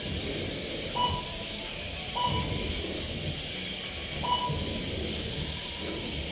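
Short, same-pitched electronic beeps from the race's lap-timing system, each marking a car crossing the timing line: three in quick succession, one to two seconds apart, with a fourth right at the end, over a steady background hiss and hum.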